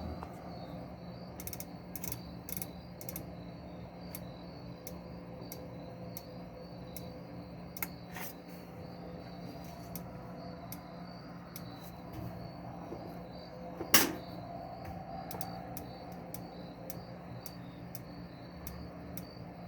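Whirlpool top-load washer, with a new tub hub fitted, running a test cycle: a steady motor hum with scattered light clicks, and one sharp, loud click about fourteen seconds in.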